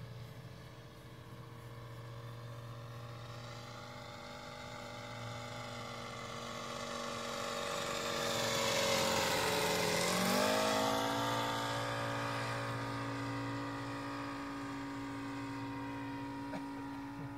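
Engine of a quarter-scale radio-controlled Stearman biplane flying a low pass. It grows louder as it approaches, then its pitch drops sharply as it goes by about ten seconds in, and it continues at a lower, steadier pitch as it flies away.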